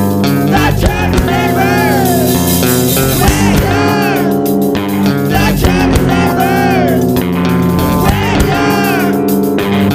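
Loud, dense rock music from a screamo/hardcore punk band recording: sustained guitar chords with drums and bass, and a lead line of notes that bend up and fall back down again and again.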